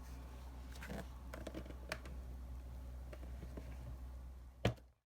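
Light scattered clicks and taps over a low steady hum, then one sharp knock near the end, after which the sound cuts off to dead silence.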